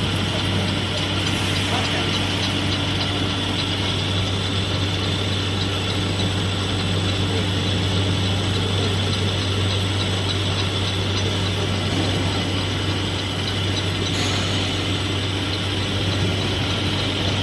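Edge milling machine's single milling head running along the edge of a steel plate, milling it: a steady mechanical hum with a constant grinding of the cutter on the metal.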